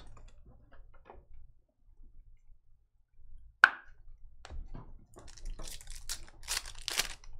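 A single sharp click with a brief ring a little past the middle, then the foil wrapper of a Panini Certified football card pack crinkling and tearing as it is ripped open by hand, loudest near the end.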